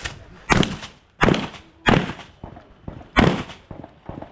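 Shotgun firing four loud shots, the first three about two-thirds of a second apart and the fourth after a longer pause of over a second. Each shot has a short echoing tail.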